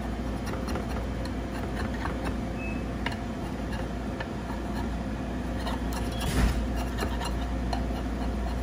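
Scattered light clicks and scrapes of a utensil working around baked egg cups in a metal muffin pan to loosen them, with one louder scrape about two-thirds of the way through, over a steady low hum.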